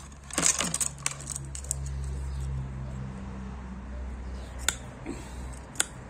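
Bamboo skewers and metal cutters rattling and clinking in a plastic tray as they are picked up, then two sharp snips about a second apart near the end as the pointed tip of a skewer is cut off.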